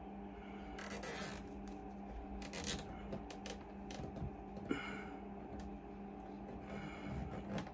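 Intermittent rustling, scraping and clicks of wires and plastic cable ties being handled, with one sharp click a little past halfway, over a steady low hum.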